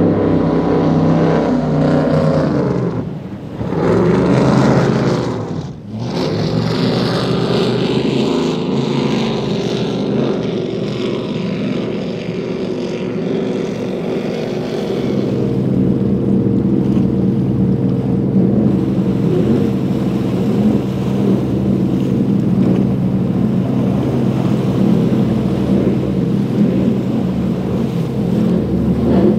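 High-performance offshore powerboat engines running flat out as the boats pass one after another. The sound drops away sharply twice in the first six seconds, then settles into a steady, even engine drone from about halfway.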